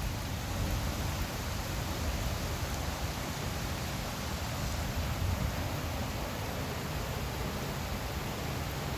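Thunderstorm downpour: rain falling steadily, an even hiss with a low rumble underneath.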